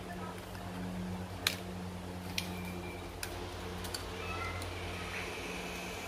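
A screwdriver working the screws of a metal 2.5-inch hard-drive caddy: three sharp metallic clicks over a steady low hum.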